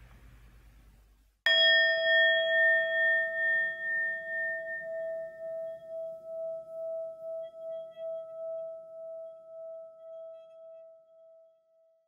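The last of a noisy rustle fades out. Then, about a second and a half in, a metal bell is struck once and rings with a single clear tone, its loudness pulsing as it slowly dies away over about ten seconds.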